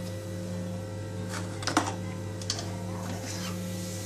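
Mustard and cumin seeds crackling in hot oil in a kadai: a few sharp pops clustered about a second and a half in and one more shortly after, over a steady low hum.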